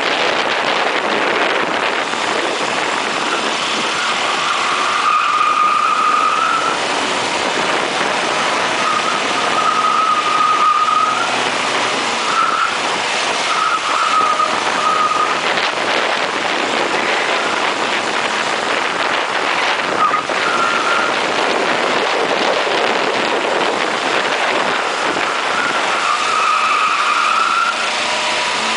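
Ford Fiesta Supersport's four-cylinder engine running at speed around a track, heavily mixed with wind and road noise on a camera mounted low outside the car. Several short, high-pitched squeals come and go along the lap.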